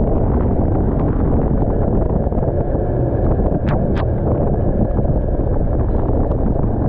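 Snowmobile engine running with wind buffeting the microphone, a steady loud rumble, with two sharp clicks close together about four seconds in.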